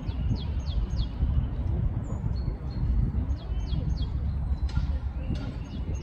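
Small songbird giving short, high chirps that fall in pitch, in quick runs of three or four, once at the start and again a little past halfway, over a steady low rumble.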